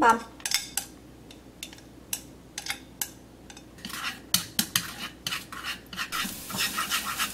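Minced shallots knocked off a metal spoon into a non-stick frying pan of oil and minced garlic, then stirred with a spatula: a string of taps and scrapes against the pan. From about six seconds in, a sizzle rises as the garlic and shallots start to fry in the heating oil.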